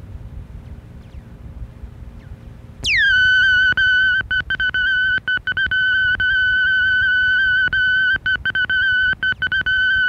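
Answering-machine beep played back from an old GTE cassette: after a faint hum, a loud steady single tone comes in about three seconds in with a quick downward swoop, then holds, cutting out briefly many times. It is the beep that marks the start of a caller's recorded message.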